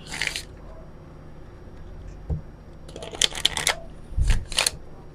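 Oracle cards being shuffled by hand: a short burst of card rustling at the start, a soft knock about two seconds in, then a longer run of shuffling near the end with a dull knock in the middle of it.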